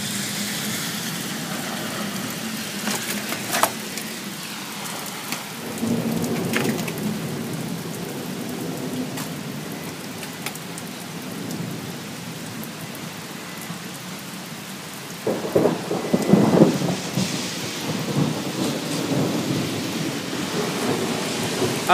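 Steady rain falling, with rolling thunder; the loudest rumble comes about sixteen seconds in.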